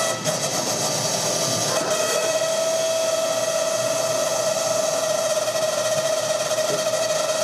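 Steady mechanical whine over a hiss from the hydraulics lowering a Goodyear FG-1D Corsair's main landing gear during a gear swing. The whine grows stronger about two seconds in.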